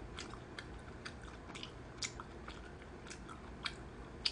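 A person chewing food with the mouth closed: soft wet mouth clicks, about two a second, with a slightly sharper click near the end.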